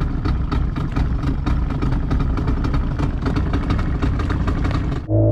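Boat engine idling, a steady low run with even pulses about five or six times a second. About five seconds in it cuts off suddenly and a steadier, evenly pitched drone takes over.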